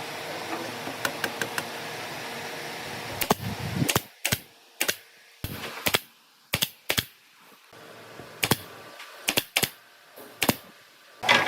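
Irregular sharp taps and knocks on a hard material, about a dozen spaced unevenly over several seconds. A low steady workshop hum drops away about four seconds in.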